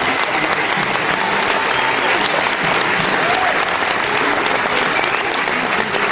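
Large audience applauding steadily, a dense mass of hand claps with some voices mixed in.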